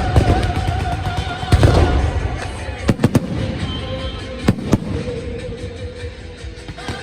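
Fireworks going off: deep booms at the start and again about a second and a half in, then pairs of sharp cracks around three seconds and four and a half seconds in. Music with long held notes plays underneath.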